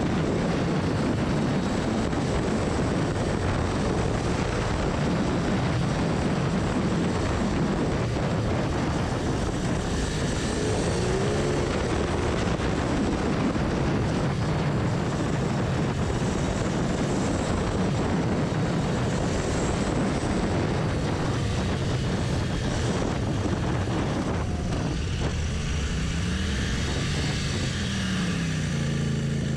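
Royal Enfield Continental GT650's 648 cc parallel-twin engine running at highway speed, heard from the bike under heavy wind noise. The engine note falls and rises a few times through the bends and climbs near the end.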